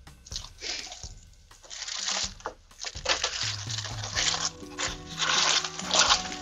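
Hands rummaging through crinkle-cut paper shred filler and plastic packaging in a cardboard box, giving irregular bursts of rustling and crinkling. Soft background music with held notes comes in about halfway.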